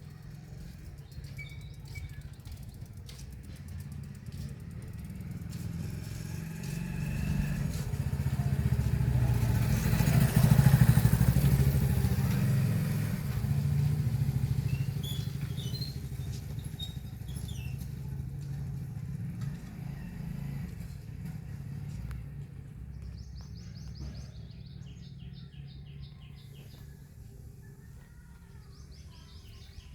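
A motor vehicle's engine passes by: it grows louder, peaks about a third of the way in, then slowly fades. Near the end a bird calls in quick runs of short high chirps.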